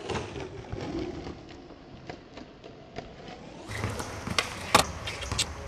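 Skateboard wheels rolling on concrete with a few light ticks. About three and a half seconds in, a louder low rumble comes in with several sharp clicks, one loud click near the end.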